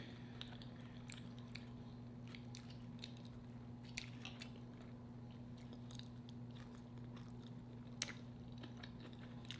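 Close-miked chewing of a mouthful of enchiladas and rice: soft, wet mouth clicks. A fork clicks against the metal plate twice, about 4 and 8 seconds in, over a steady low electrical hum.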